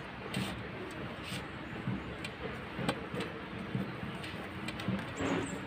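Bare hands mixing rice and vegetable curry on steel plates, giving a few light clicks and taps against the metal over a steady low background noise.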